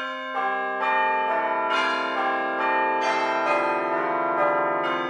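A tune of chiming bell tones, a new note struck about every half second, each ringing on under the next.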